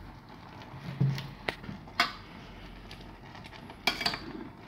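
Blue plastic spatula stirring chopped tomato, onion and huitlacoche in a white enamel pan, knocking against the pan in a few sharp clicks about half a second to a second apart, with one more near the end.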